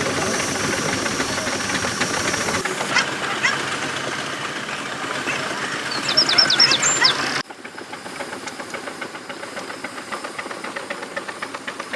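Miniature steam engine running, with a steady hiss of steam and a rapid mechanical beat. The sound changes abruptly twice, growing quieter after the second change.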